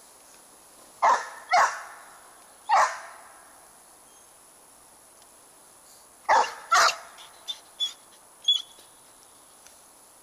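A dog barking: two quick barks and a third about a second later, then after a pause two more quick barks followed by a few shorter, quieter ones.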